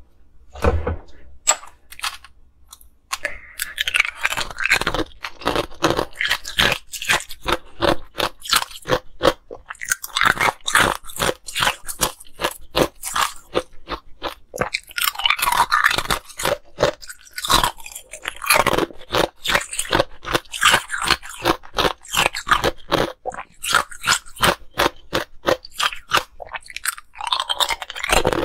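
Hard ice being bitten and chewed close to the microphone: rapid, crisp crunching and cracking, sparse for the first few seconds, then almost unbroken.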